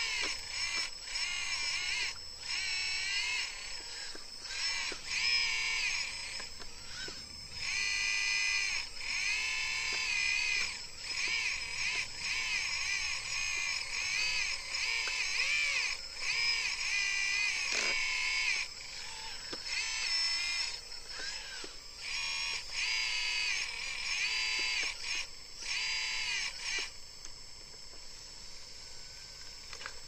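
Electric hydraulic pump of a 1/14-scale RC hydraulic excavator whining in short spells that rise and fall in pitch as the boom, arm and bucket are worked, over a steady high whine. The spells stop about three seconds before the end, leaving only the steady whine.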